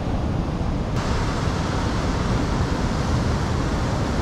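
Ocean swell surging and foaming against a rock ledge, with wind rumbling on the microphone. The hiss of the water turns suddenly brighter about a second in.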